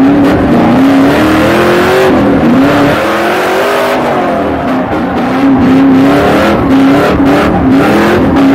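Chevrolet LS3 6.2-litre V8 in a BMW E30 under hard driving, heard from inside the cabin: a loud engine note that climbs and falls again and again with the throttle.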